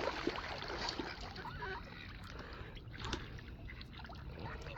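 Ducks and geese splashing and dabbling in shallow lake water, a patter of many small, scattered splashes.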